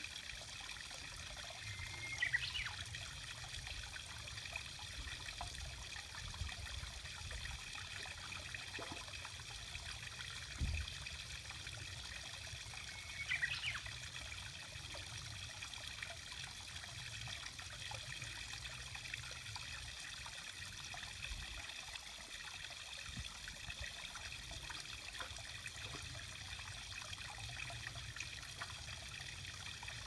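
Water trickling steadily along a shallow concrete drainage gutter. Twice, about two seconds in and again near the middle, a Japanese bush warbler gives a short song phrase.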